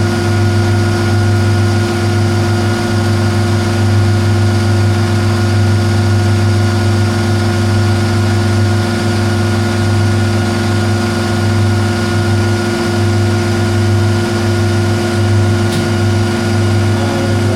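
Metal lathe running under power with a steady hum of motor and gearing while it takes a light turning pass of about half a millimetre on bar stock.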